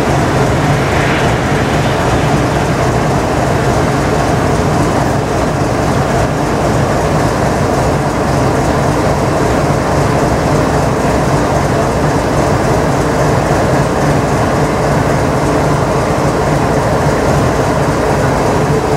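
BNSF GE C44-9W diesel-electric locomotive's engine running close by with a steady, deep drone that does not change.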